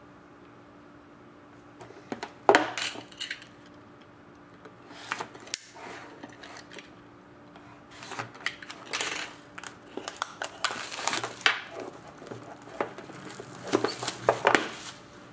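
Hands opening and unpacking a box of trading cards: irregular rustling of packaging with sharp clicks and knocks of cardboard and hard plastic, starting about two seconds in, the loudest knock soon after.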